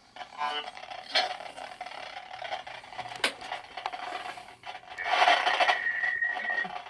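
Handling noise of rubbing and scraping on a handheld microphone, with a sharp click about three seconds in. From about five seconds comes a louder burst of hiss with a steady high whistle.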